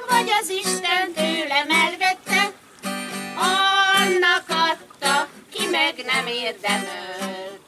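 Women singing together to a strummed acoustic guitar.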